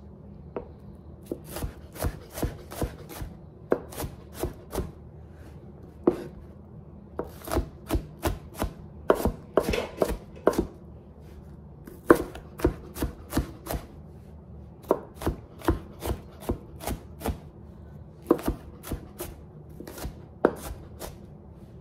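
Kitchen knife chopping an onion on a cutting board: sharp knocks in runs of several strokes, about two or three a second, with short pauses between runs.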